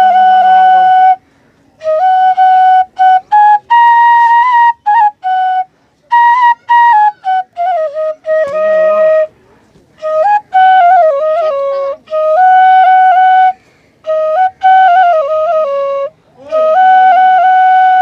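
Bansuri (Indian bamboo flute) playing a Chhath folk-song melody in short phrases with brief pauses between them, stepping between held notes with some slides.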